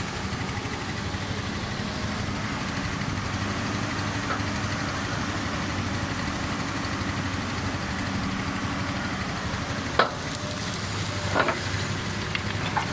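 Komatsu excavator's diesel engine running steadily, with two sharp knocks a little over a second apart near the end.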